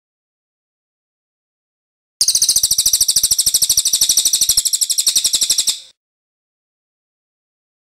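A songbird's rapid, high-pitched rattling trill of about a dozen evenly spaced notes a second. It starts about two seconds in and lasts about three and a half seconds.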